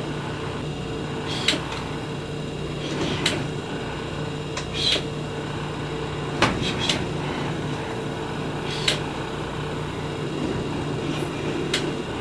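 Steady drone of the 1999 Carver 504 motor yacht's engines running slow during docking, with about seven sharp knocks spread a second or two apart.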